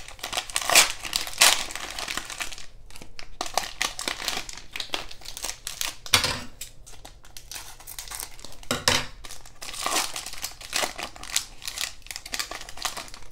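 Plastic wrapper of a Donruss Optic basketball cello pack crinkling and tearing as it is ripped open by hand, in irregular crackles, loudest near the start and again about two-thirds of the way through.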